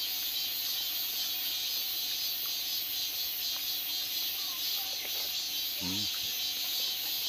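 Cicadas singing in a steady, high-pitched summer chorus.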